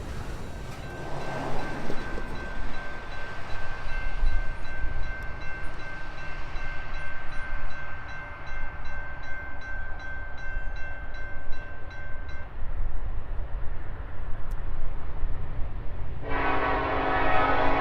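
Low rumble of an approaching diesel freight train led by an SD70ACE locomotive, with a faint steady high tone that fades out about two-thirds of the way through. Near the end the lead locomotive's air horn blasts loudly.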